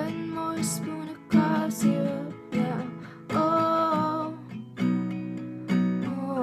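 Acoustic guitar strumming chords, with a fresh stroke every half-second to second and a half and the chords ringing between strokes.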